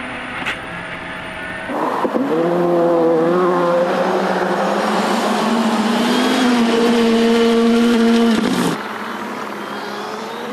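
Skoda Fabia R5 rally car's turbocharged four-cylinder engine at high revs on a gravel stage. It starts moderately loud, then from about two seconds in it is much louder and close by, its pitch rising and then holding steady. Near the end it drops back to a quieter, more distant engine sound.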